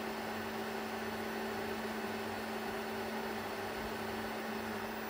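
Creality Ender 3 V3 KE 3D printer running its automatic self-calibration, a quiet steady mechanical hum with one constant low tone. The printer runs very quietly.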